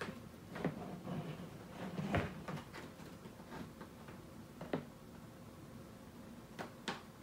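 Faint scattered knocks and clicks of plastic, about half a dozen, as the net-pot lid of a storage-tote cloning rig is lifted off its reservoir.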